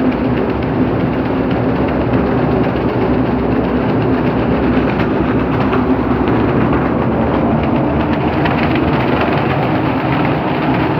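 Waste plastic dust remover (fatka) machine running: its electric motor and belt-driven drum make a steady, loud mechanical drone with a low hum.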